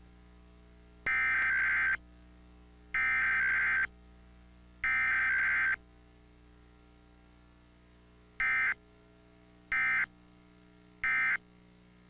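Emergency Alert System SAME data tones from a station's EAS encoder: three raspy digital header bursts of about a second each, evenly spaced, then after a short gap three much shorter bursts, the end-of-message code. There is no attention tone, as is usual for a Required Weekly Test.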